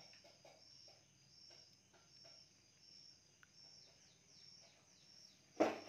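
A steel pot of dal boiling over on a gas stove, its froth crackling faintly with small bubble pops. A high chirp repeats about once a second behind it, and a louder knock comes near the end.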